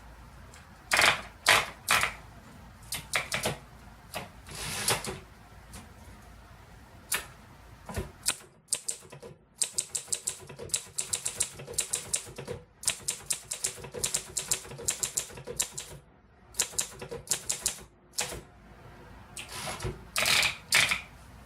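A 1955 Underwood De Luxe Quiet Tab portable typewriter being typed on: runs of quick key clacks with short pauses between words, and a few louder, longer strikes of the mechanism about a second in and again near the end.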